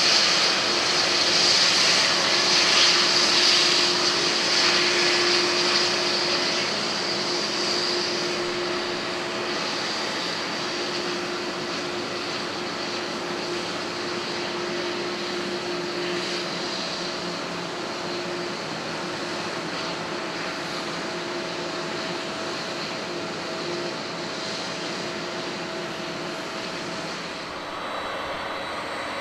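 Airbus A330-300's General Electric CF6-80E1 turbofan engines running at taxi power: a steady jet hiss and whine with two steady humming tones underneath. Loud for the first several seconds, then settling quieter and steady.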